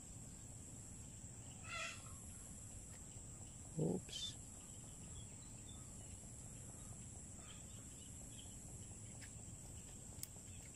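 Quiet rural outdoor background with a steady high-pitched hum, broken by a few short animal calls, one at about 2 s and another at about 4 s.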